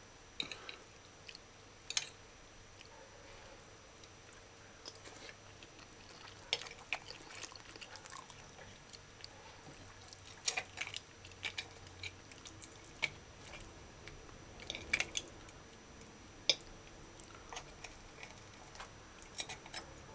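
A person chewing food, with a metal fork now and then clicking and scraping sharply against a china plate.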